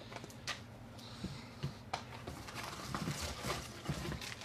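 Magic: The Gathering booster packs in foil wrappers being handled, rustling and crinkling, with irregular light taps as they are set down on the table in stacks.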